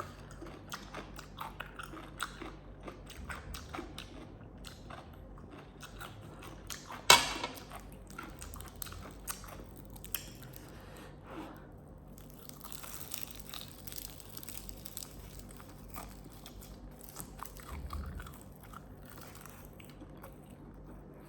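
Close-up eating sounds: chewing and biting food with small wet clicks and crunches. There is one sharper, louder click about seven seconds in.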